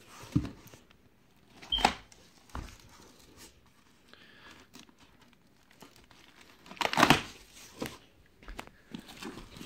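Cardboard box and foil packaging being handled and opened: scattered rustling and crinkling with a few knocks, the loudest burst of crinkling about seven seconds in.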